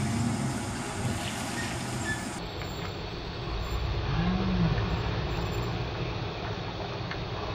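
Pickup truck engine running as it crawls through deep mud ruts off-road, revving up and back down about four seconds in.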